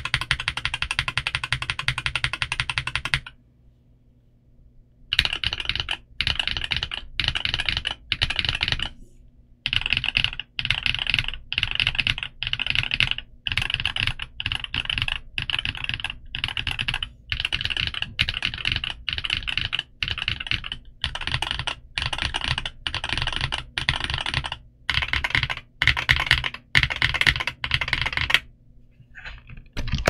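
Typing on an NK87 EE mechanical keyboard with a polycarbonate plate, Kiiboom Taro Cream Milk switches and dye-sub PBT Cherry-profile 9009 keycaps. The typing comes in bursts of about a second with short breaks, with a pause of about two seconds a few seconds in, and it stops shortly before the end.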